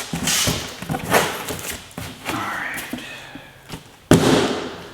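Rustling and knocking from things being handled, with a sharp thump about four seconds in.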